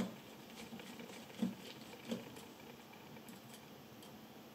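Small precision screwdriver backing out the screws of a Panasonic Leica DG Vario 12-60 lens's bayonet mount: faint small clicks and ticks, with three sharper clicks in the first two and a half seconds and softer ticks after.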